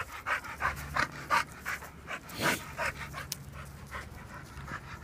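Pit bull panting rapidly with its mouth open, about three breaths a second, with one louder breath about halfway through; the dog is winded from running and playing.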